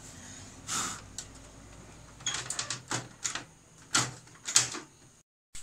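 Plastic clicks and rattles, then two sharp knocks about four and four and a half seconds in, as the Toshiba e-STUDIO photocopier's covers and panels are pushed shut and latched.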